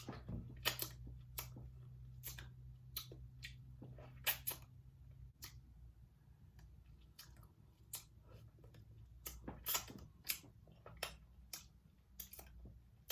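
Close-miked eating of a seafood boil: scattered wet clicks and smacks of chewing and picking at shellfish, irregular and a few sharper than the rest, over a low steady hum that fades about five seconds in.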